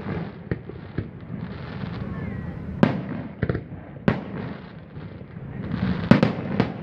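Aerial firework shells bursting overhead: a string of sharp bangs at irregular intervals, several close together, with the loudest about three seconds in and about six seconds in, over a continuous noisy wash between the reports.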